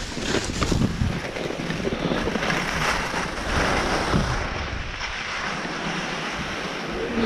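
Wind rushing over the chest-mounted action camera's microphone while skiing downhill, with Head skis hissing and scraping over packed snow.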